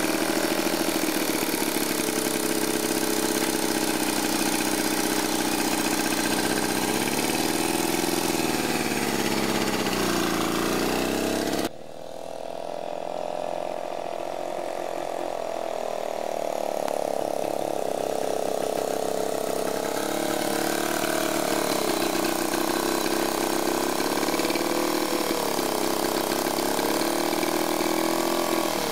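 1926 Dunelt motorcycle's single-cylinder two-stroke engine running while ridden, its pitch rising and falling with the throttle. About twelve seconds in the sound cuts off abruptly and comes back a little quieter, the engine's pitch climbing and wavering again.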